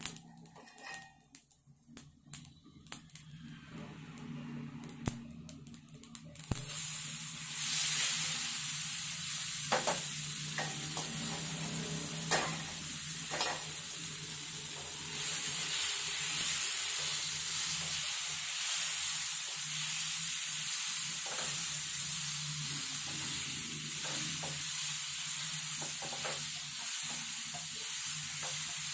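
Whole spices and a dried red chilli crackling in hot oil in a nonstick pan, with scattered sharp pops; about six seconds in, raw mango slices go into the oil and it breaks into a steady sizzle. A wooden spatula knocks and scrapes in the pan a few times as the slices are stirred.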